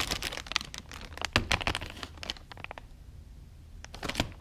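Plastic food packaging crinkling as it is handled, a dense run of crackles over the first two and a half seconds, then quieter, with another short burst near the end.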